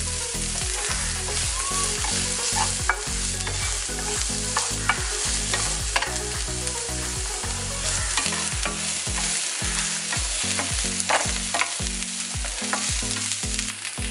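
Chopped onions, garlic, green chillies and curry leaves sizzling in hot coconut oil in a nonstick pan, stirred with a wooden spatula that scrapes and taps against the pan now and then. A low beat runs underneath, pulsing about twice a second in the second half.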